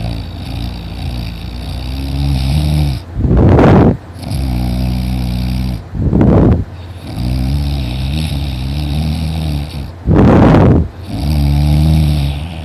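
Very loud, intense snoring from a deep sleeper: three harsh, rasping snores about three to four seconds apart, with a lower buzzing breath between them.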